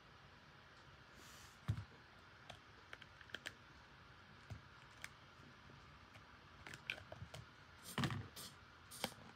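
Scattered light clicks and taps of a hard plastic phone case being pried off a phone and set down on a desk, with a dull knock about two seconds in and a cluster of taps near the end.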